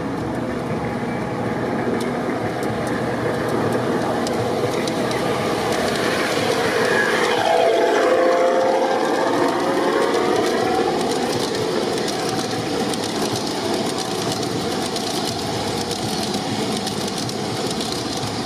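G-scale model passenger train rolling along its garden-railway track, its wheels running with a stream of light clicks over the rails. The sound grows louder as the train approaches and sweeps past closest about eight seconds in, then carries on steadily.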